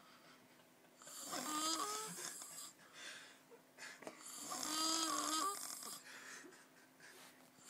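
A sleeping man snoring: two long, pitched, squealing snores, each about a second and a half, roughly three seconds apart.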